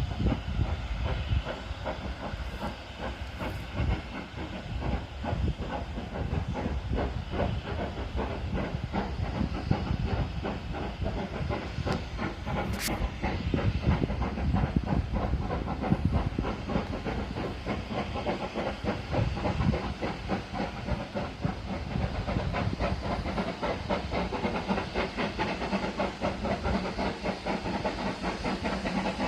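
Steam locomotive working, its exhaust beating in quick succession over a steady hiss of steam.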